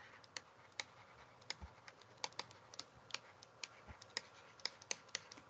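Faint, irregular clicks, about two or three a second, from a stylus tapping on a pen tablet while handwriting is written.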